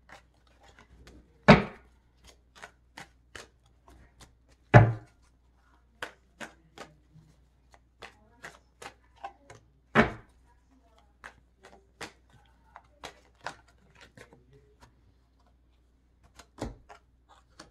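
A tarot deck being shuffled and handled on a table: a scatter of light card clicks and snaps, with a few louder knocks on the table, about one and a half, five and ten seconds in.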